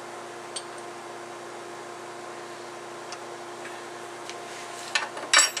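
Light metallic clicks from the rifling machine's test rig being handled as its indicator rods are reset, with two sharper clinks near the end, over a steady machine hum.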